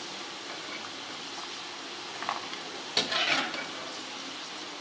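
Hot ghee sizzling steadily around fried arbi (taro root) pieces as they are lifted out and drained. About three seconds in there is a sharp tap followed by a short louder burst of sizzling.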